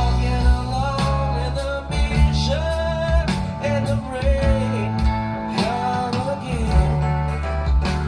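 A rock song with a singing voice, guitar and drums, played back through a hi-fi system and picked up by microphones in the listening room.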